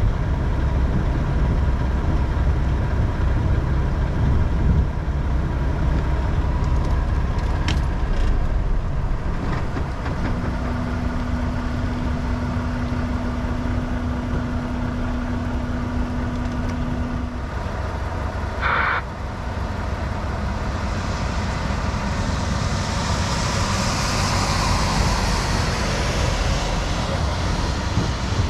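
Semi truck running down the road, heard from inside the cab: a steady low engine and road drone. Midway a single steady tone sounds for about seven seconds, there is a brief sharp sound a little later, and a high hiss swells and fades over the last several seconds.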